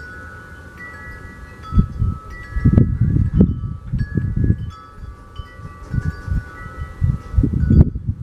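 Wind chimes ringing at random, several overlapping bell tones sounding and dying away. Irregular low rumbling bursts run underneath, loudest about three seconds in and again near the end.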